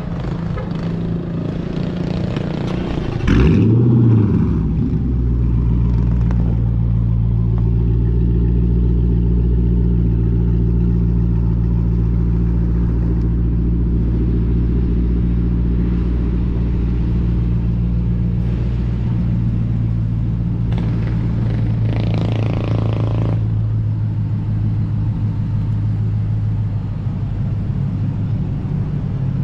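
HEMI V8 engine starting up: a loud flare of revs about three seconds in that sweeps up and falls back, then a steady idle. A brief rushing noise about 22 seconds in.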